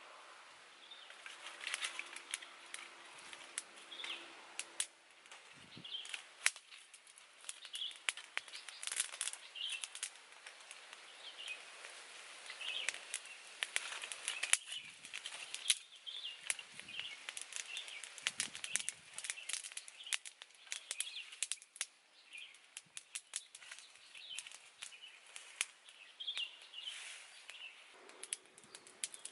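Dry sticks and twigs being handled and laid over a fire, giving many sharp clicks and small snaps, while birds chirp over and over in the background. Near the end comes a soft rushing sound of blowing on the embers to get the kindling alight.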